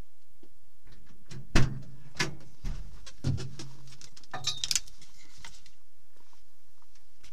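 Car door unlatched and swung open with a loud clunk about one and a half seconds in, followed by knocks, clatter and rustling as the occupant moves in the seat to get out.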